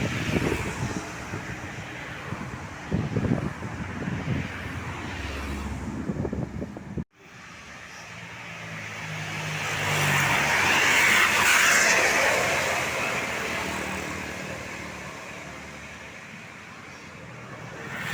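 Roadside traffic noise; after an abrupt cut about seven seconds in, a tour bus passes by, its engine and tyre noise swelling over a few seconds and then slowly fading.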